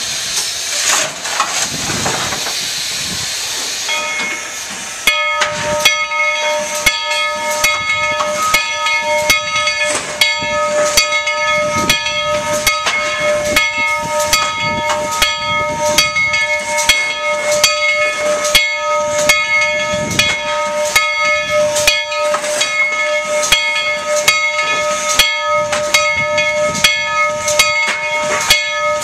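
Tweetsie Railroad steam locomotive No. 190 standing with steam up: a few seconds of loud steam hiss, then a steady whine of several tones held together, with a regular chuff about one and a half times a second.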